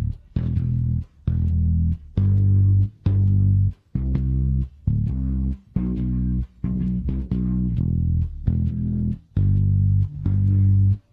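Isolated studio bass guitar track playing a riff of plucked low notes, each held briefly, with short breaks between many of them. No drums, guitar or vocals are heard.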